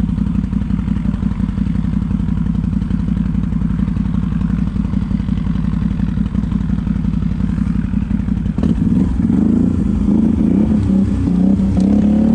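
ATV engine running steadily; about eight and a half seconds in it gets louder and revs up and down with a wavering pitch as it climbs.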